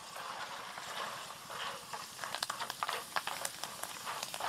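Thin slices of green banana frying in hot oil and butter, sizzling, with scattered sharp crackles and clicks that come thicker in the second half as the slices are stirred in the pan.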